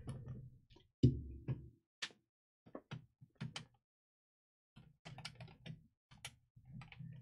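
Scattered small clicks, taps and short scrapes of a screwdriver and screws against the plastic bottom casing of a laptop as the cover screws are fitted. A sharp knock about a second in is the loudest sound, and there is a short lull before the clicking resumes.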